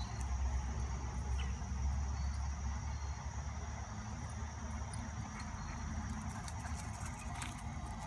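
Steady high-pitched insect trill over a low rumble that is strongest in the first three seconds.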